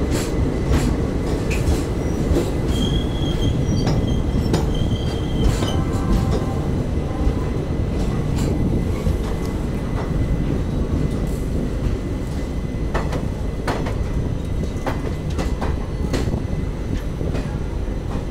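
Passenger train rolling slowly out of a station, heard from the open coach door: a steady low rumble of steel wheels on rail, with scattered clicks as the wheels pass over rail joints and points. A thin, high wheel squeal sounds for a couple of seconds near the start.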